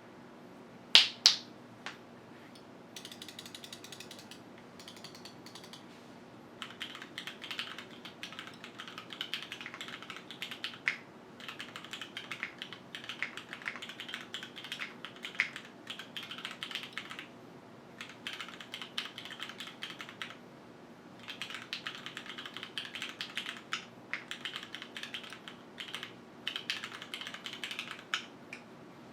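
Typing on a QwertyKeys Neo 65 mechanical keyboard with Cherry HyperGlide Black linear switches in an aluminium plate, gasket-mounted with no foam: rapid runs of key clicks in bursts, with a pause of a few seconds in the middle. Two louder sharp clicks come about a second in.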